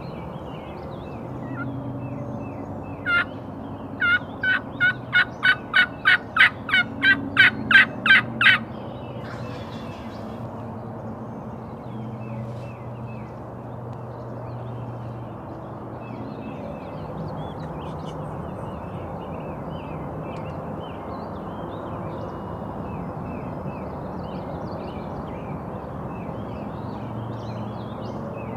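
Wild turkey calling: one note, then a quick run of about a dozen yelps that grow louder, with faint songbird chirping throughout.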